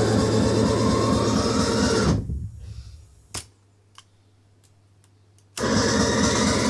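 Music played back on a Radiotehnika 7301 cassette deck dies away about two seconds in. A sharp click follows, then a couple of seconds of near silence broken by a few faint mechanical clicks, and the music starts again abruptly.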